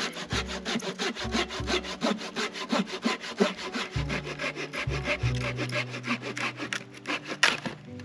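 Hand saw cutting through a dead branch for firewood, in quick, even back-and-forth strokes of about four to five a second that stop shortly before the end.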